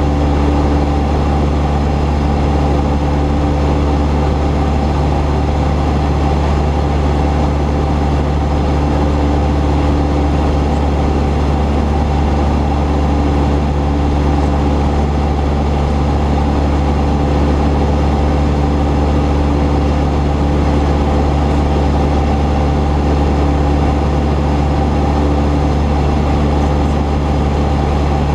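Cessna 172's piston engine and propeller running at a steady, unchanging pitch.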